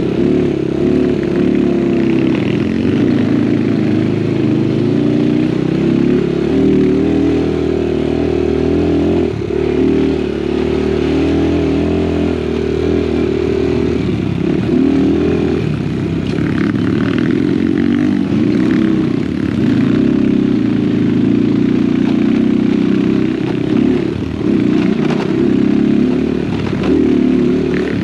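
Motorcycle engine running hard on an off-road trail, its pitch rising and falling as the throttle is worked.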